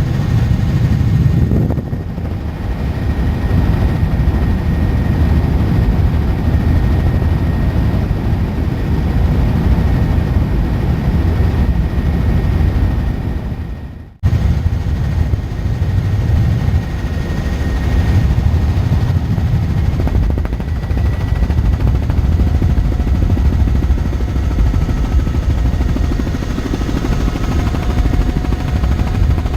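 Helicopter rotor and turbine noise heard from inside the cabin in flight: a loud, steady rumble with a faint high whine. About halfway through it fades and cuts off abruptly, then comes straight back.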